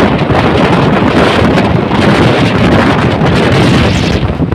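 Loud wind rushing over a phone's microphone held out of a moving train's window, with the train's running rumble on the track underneath.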